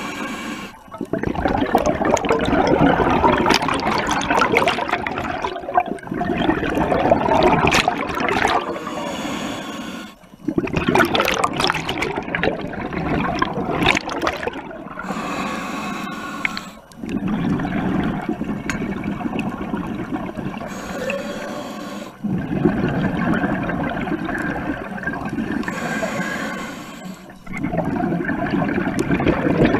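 Scuba regulator exhaust bubbling in long bursts as the diver breathes out, with short quiet breaks for each breath in, every five seconds or so.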